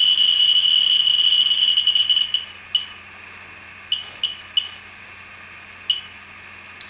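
Pancake-probe Geiger counter beeping so fast that the beeps merge into one continuous high tone: a high count rate from the radioactive mineral samarskite held near it. About two seconds in the tone breaks off into a handful of separate single beeps, the slow background-level rate.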